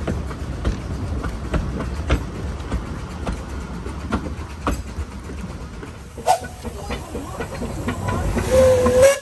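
Narrow-gauge railway carriages rolling past close by, their wheels clicking over rail joints about twice a second over a low rumble. Near the end, a steam locomotive's hiss grows louder, with a brief pitched tone.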